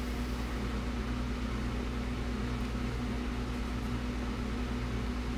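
Steady low mains hum with its overtones and a light hiss from a 1920s Crosley Gembox tube radio warming up after being switched on, with no station tuned in yet.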